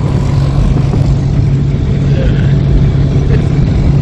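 A vehicle running at a steady speed, heard loudly from on board: an even engine hum with road and wind noise.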